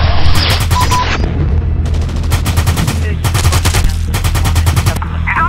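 Paintball markers firing in four rapid bursts of shots, each lasting under a second, over a steady deep bass.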